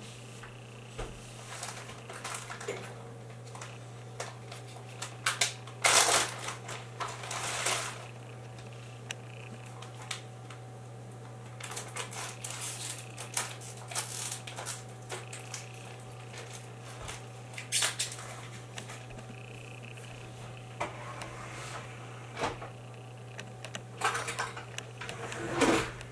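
Irregular clicks, taps and short rustles over a steady low hum, with the loudest bursts about six seconds in, near eighteen seconds and near the end.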